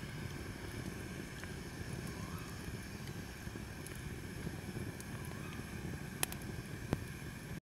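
Wood campfire burning: a steady low rush of flames with a few sharp crackles, two of them close together near the end, then the sound cuts off abruptly.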